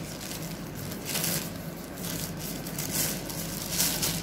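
Thin plastic carrier bag crinkling and rustling in irregular bursts as it is gathered and pinched by hand.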